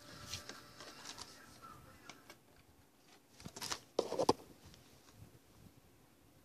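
Light handling sounds: a few soft clicks and rustles, with a short cluster of louder knocks and rustling about three and a half to four seconds in.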